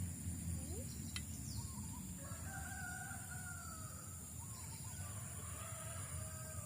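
Roosters crowing faintly, two long drawn-out crows about two and five seconds in, over a steady high-pitched whine and a low rumble.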